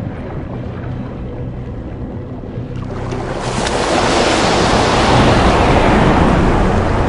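Water rushing and splashing at the sea surface, swelling to a loud rush about three seconds in, over low background music.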